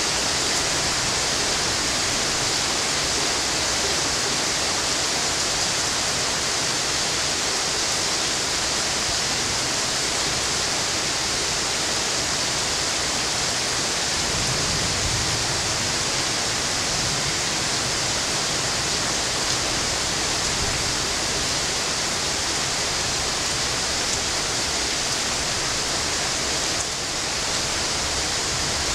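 Steady heavy rain falling, an even hiss with no pauses, with a faint low rumble about halfway through.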